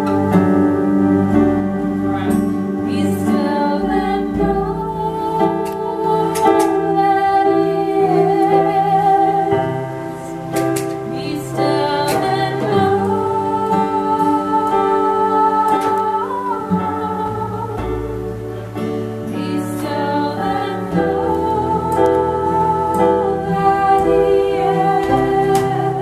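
Small live band playing a slow song: keyboard holding sustained, organ-like chords, acoustic guitar, and a woman singing with vibrato.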